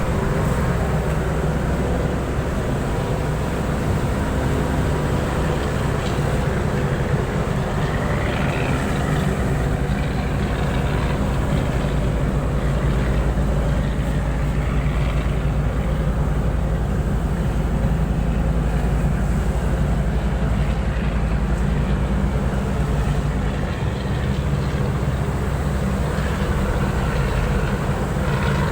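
Tugboat diesel engine running steadily under load, a low, constant drone, as the tug pulls a grounded barge.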